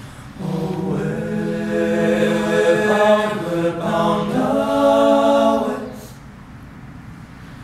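All-male a cappella group singing in harmony, holding long chords. The phrase comes in about half a second in and dies away about six seconds in, leaving a pause.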